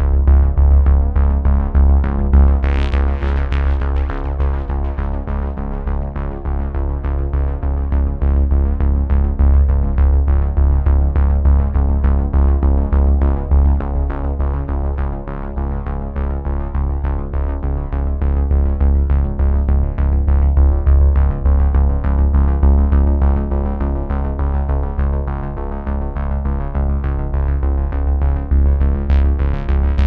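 Background music: synthesizer music with a steady beat, changing to a brighter, edgier sound near the end.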